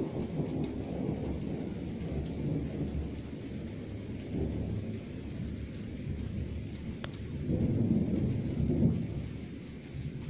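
Thunder from a passing thunderstorm rumbling in long, rolling swells, loudest near the end, over a faint steady hiss of rain.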